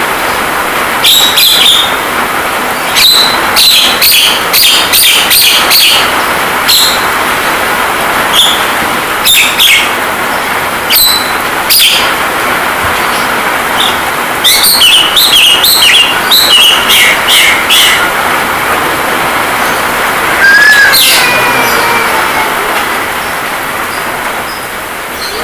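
Javan myna calls: sharp clicks and harsh chirps in quick runs, and a falling whistle about twenty seconds in. They sound over a steady hiss of rain sound used as training therapy for the bird.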